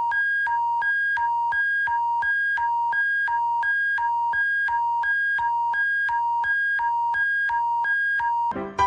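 Synthesized two-tone alert signal: a lower and a higher electronic beep alternate about every third of a second over a low steady hum. The tone cuts off just before the end, and piano music begins.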